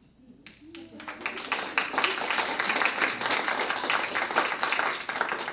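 A small audience applauding: a few single claps, then many hands clapping together from about a second in.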